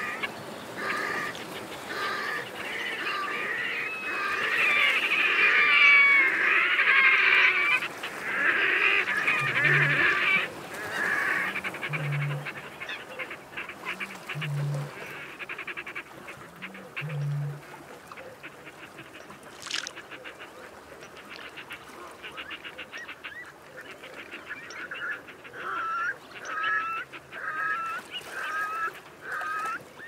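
Grebes calling on open water: a loud run of dense, chattering calls in the first several seconds, then low soft hoots about every two and a half seconds, and near the end a string of short repeated calls about one a second.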